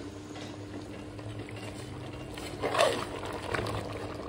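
Chicken and potato curry simmering in an aluminium pot, a soft steady bubbling, with one brief louder sound about three seconds in.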